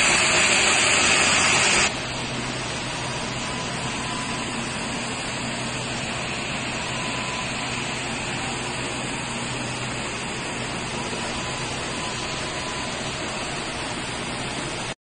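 Aluminium rod breakdown wire drawing machine running with a loud, steady machine noise. About two seconds in it gives way abruptly to the quieter, steady hum of the electrical control cabinets, with a low drone and a faint high whine.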